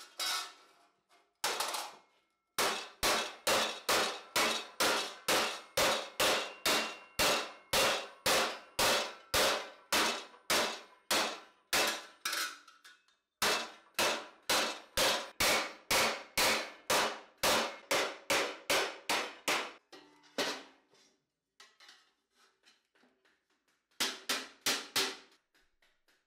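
Hand hammer striking a 1.5 mm 30KhGSA steel plate on a steel block, shaping a curved helmet piece: a steady run of ringing metallic clangs, about two to three a second, with a short pause partway and a last brief flurry near the end.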